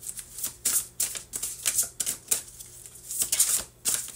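A deck of tarot cards being shuffled by hand, the cards rattling and slapping together in quick, uneven bursts, about two to three a second.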